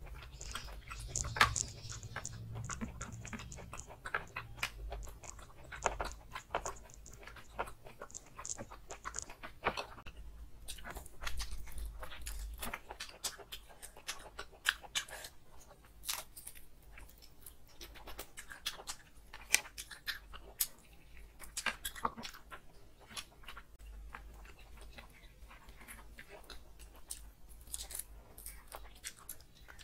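Close-up eating sounds: irregular wet chewing, lip smacks and crunchy bites as mutton rib curry and rice are eaten by hand.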